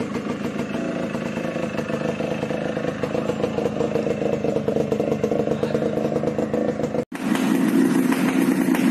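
Suzuki Shaolin two-stroke motorcycle engine running at a steady speed. About seven seconds in there is a brief break, then a louder, lower-pitched run of the engine, the next recording in a stock-exhaust versus expansion-chamber comparison.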